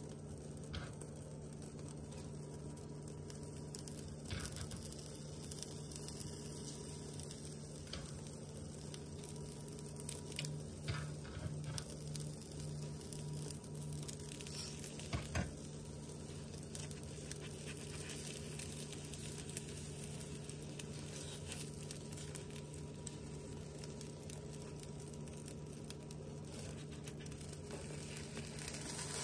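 Omelette eggs sizzling softly in a nonstick frying pan, with faint crackling pops over a steady low hum. A few light taps come around the middle as chopped ham is dropped into the pan.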